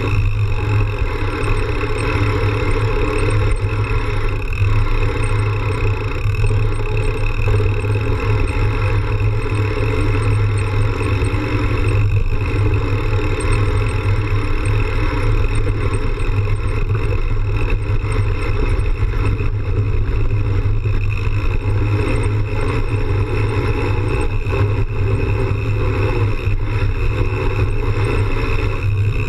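Steady rumbling drone of a mountain bike rolling along a dirt trail, as picked up by a camera mounted on the bike: tyre noise on dirt and rattle through the mount, unbroken throughout.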